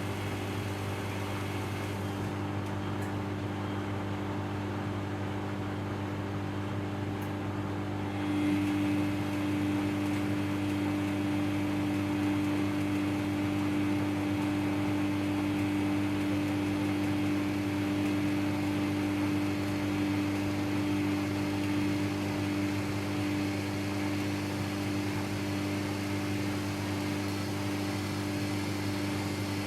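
Samsung EcoBubble front-load washing machine running its cotton wash cycle: a steady motor hum. About eight seconds in, a louder steady tone joins and holds.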